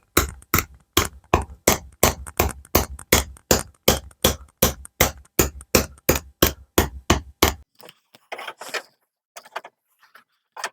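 Ball-pein hammer tapping a steel repair panel into a curve over a flexible backing, about four steady blows a second. The hammering stops about three quarters of the way through, leaving a few faint knocks and clicks.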